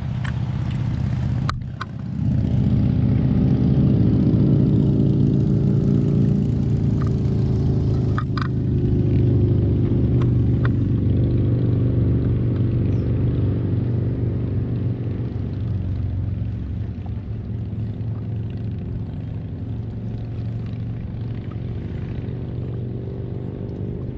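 Sea-Doo FishPro personal watercraft's engine running under way. It drops out briefly about two seconds in, then comes back louder and holds a steady pitch, easing off gradually through the second half.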